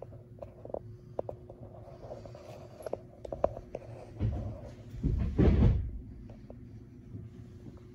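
Camera handling noise: small clicks and knocks from a hand-held camera being moved through a boat cabin, over a steady low hum. A short bump about four seconds in, then a louder rumbling bump lasting about a second.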